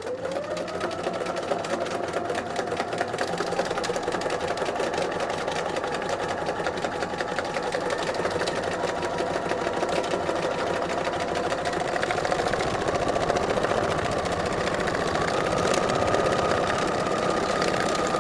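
Domestic sewing machine running steadily, stitching free-motion through paper with the feed dogs dropped. The motor whine rises as it gets up to speed at the start, then holds with fast even stitching, going a little higher near the end.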